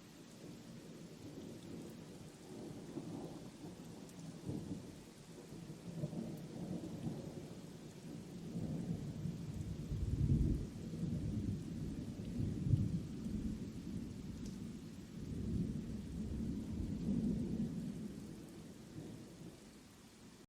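Thunder rumbling in long rolls over steady rain, building to its loudest about halfway through and fading away near the end.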